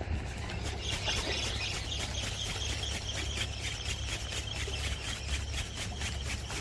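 Spinning reel being cranked to bring in a hooked fish, a steady run of evenly spaced ticks over a low rumble.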